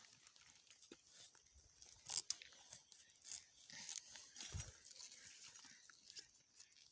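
Faint rustling and crackling of dry plants being handled and broken while picking krachiao flowers, with a few sharp snaps, the loudest about two seconds in.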